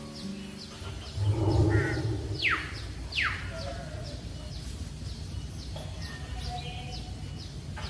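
Birds calling: two steep, falling whistles about two and a half and three seconds in, over a steady scatter of short, high chirps and background outdoor noise.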